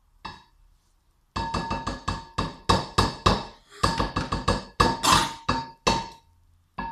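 Rapid rhythmic strikes on something that rings, about three a second, starting about a second in; each hit has a sharp attack and a short ringing tail on the same pitch.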